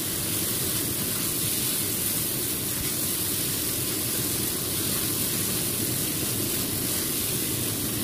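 Chicken wings sizzling in hot oil in a wok as they are stir-fried with lemongrass and ginger until golden: a steady hiss.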